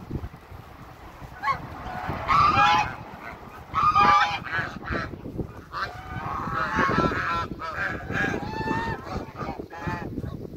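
African geese honking: several loud calls about two and four seconds in, then a run of shorter, overlapping honks.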